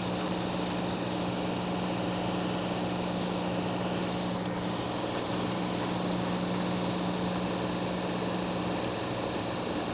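Steady whir of an electric blower fan from the electronics repair bench, with a low, even hum that does not change.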